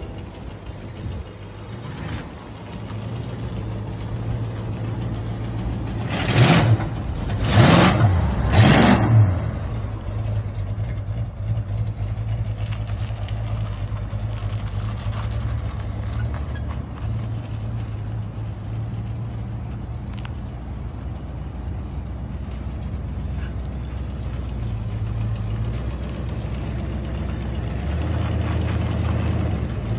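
1972 Buick Skylark's engine running, revved in three short blips about six to nine seconds in, then idling and rolling slowly.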